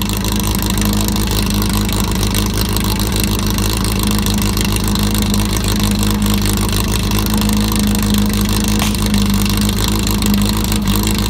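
Portable fire pump's engine running loud and steady, its pitch holding even, as the team sets off.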